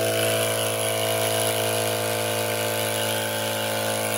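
Procraft LK400 twin-cylinder 12 V tyre compressor running at a steady, even hum, free-running with its air hose not connected to a tyre.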